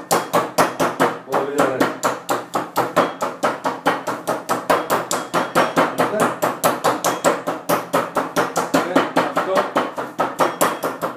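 Meat mallet pounding a raw chicken breast flat on a wooden chopping board: rapid, steady blows, about four a second.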